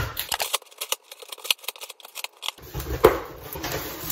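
Scissors cutting through packing tape on a cardboard box, a quick run of sharp clicks, then from about two and a half seconds in the box flaps are pulled open and packing paper rustles.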